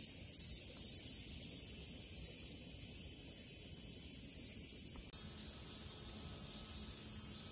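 Steady high-pitched chorus of insects, a dense even shrilling. It drops a little in level and changes in tone about five seconds in.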